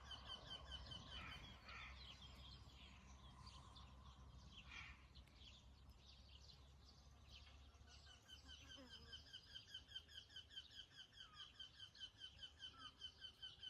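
Faint birdsong in the countryside: a fast, even run of high chirps repeating several times a second, with scattered other calls, fading in the middle and returning for the second half.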